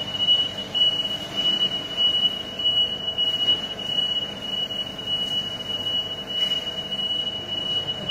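Steady high-pitched electronic warning tone, like a forklift's travel alarm, sounding without a break over a low hum of machinery.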